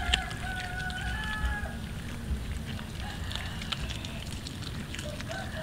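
A cat chewing a raw fish, with quick wet crunching clicks. A long drawn-out animal call sounds in the background for the first couple of seconds and again near the end.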